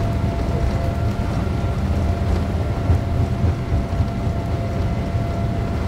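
Cabin noise inside a Boeing 787 Dreamliner rolling on the ground: a steady low rumble from the engines and the aircraft's movement, with a faint steady whine above it.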